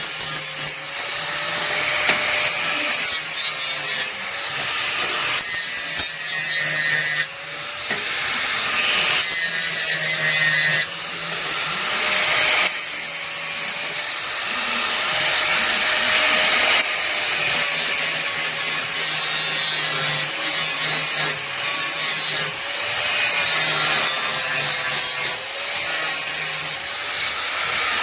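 Power tool cutting or grinding steel: a harsh, continuous rasping with a slightly wavering whine, dipping briefly every few seconds.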